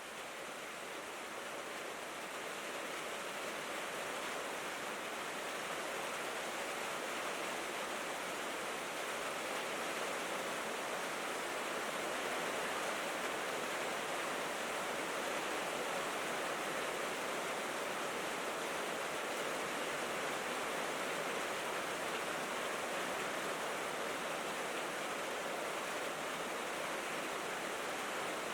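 Steady rain falling on a tin roof, an even hiss that grows a little louder over the first ten seconds or so.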